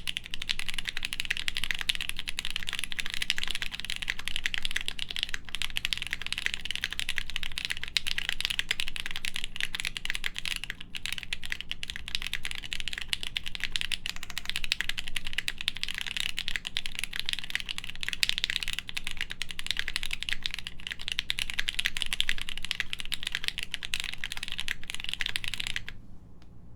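Fast, continuous typing on a plateless Studio Kestra Nue mechanical keyboard with lubed H1 switches, 68 g springs and GMK keycaps: a dense stream of keystroke clicks. The typing stops abruptly near the end.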